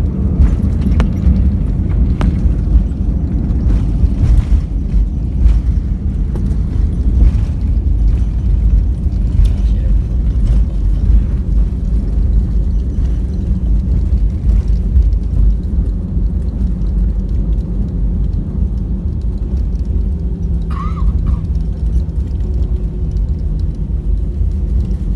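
Airliner cabin noise just after landing: a loud, steady low rumble of the engines and the wheels rolling on the runway, with a few faint knocks and rattles in the first half.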